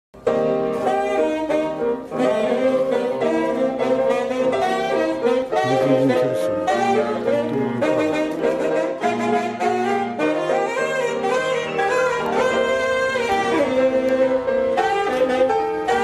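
Instrumental background music: a melodic lead line over held lower notes.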